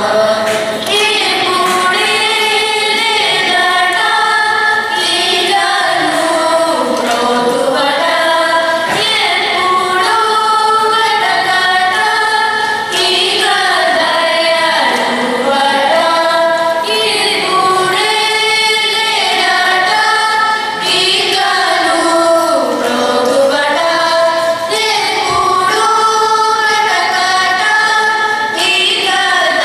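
A group of children singing a Carnatic song together, with long melodic phrases that glide and ornament between notes.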